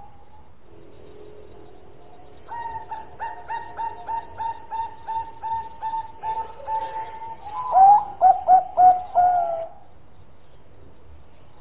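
Zebra dove (perkutut) singing its cooing song. A quick run of short, soft notes, about three a second, leads into about five louder, lower coos, each falling in pitch, near the end.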